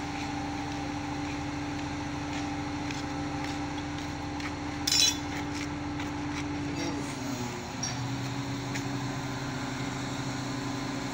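Mobile crane's diesel engine running steadily as it lifts a chiller unit, its pitch dropping a little about seven seconds in as the engine slows. A single sharp clink about five seconds in.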